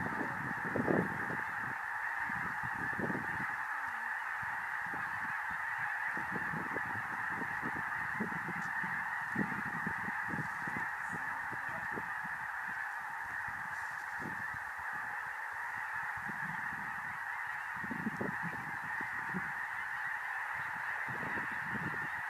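A huge flock of snow geese calling, a dense unbroken chorus of honking, with irregular low rumbles underneath.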